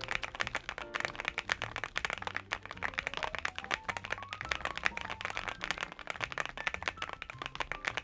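Continuous fast typing on a NuPhy Gem80 mechanical keyboard fitted with a polycarbonate plate on its silicone-strip mount and PBT keycaps: a dense, even run of keystroke clacks, several a second.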